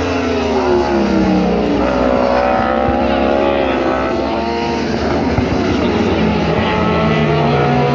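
Several racing superbike engines running at high revs as a group of bikes passes at speed, their pitch sliding down and climbing again through the gears.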